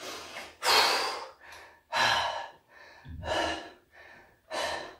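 A man breathing hard from exertion during leg raises: a strong mouth exhale about every second and a half, with softer breaths in between.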